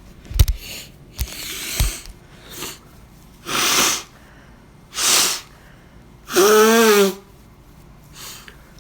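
A man sneezing over and over in a fit. Three loud sneezes come in the second half, about a second and a half apart, and the last has a drawn-out voiced cry. Sharper, rougher blasts and breaths come before them.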